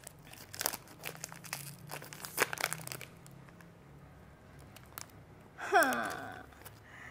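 Paper card-pack wrapper crinkling and tearing as it is ripped open by hand, in rapid crackles for the first three seconds, then fewer. Near the end comes a short falling vocal exclamation.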